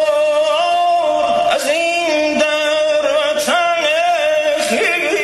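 A solo male voice singing Persian classical avaz into a microphone, holding long notes and breaking into quick warbling ornaments twice.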